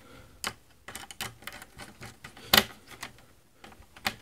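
Irregular sharp clicks and light knocks from hands working the screw terminal block and metal case of a 12 V switching power supply as wires are fastened to it, with one louder click about two and a half seconds in.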